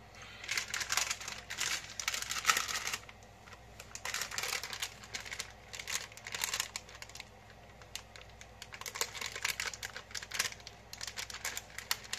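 Crinkling of sliced-cheese packaging in several bursts of fine crackles with short pauses between, as stubborn cheese slices are peeled off their wrapping.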